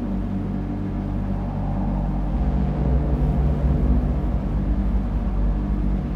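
A large vehicle engine running with a steady low rumble, getting louder about two seconds in.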